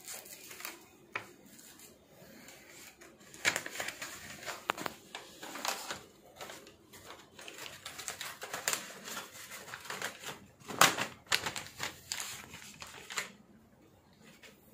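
Bundles of paper banknotes being handled and shuffled: an irregular run of papery rustles, crackles and clicks. The loudest crackle comes about two-thirds of the way through.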